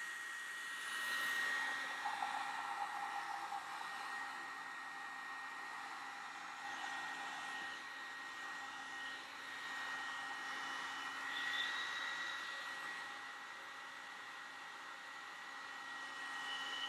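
Revlon One-Step hair dryer brush running steadily on its low setting: a blowing hiss with a thin high whine, its loudness rising and falling a little as the brush moves through the hair.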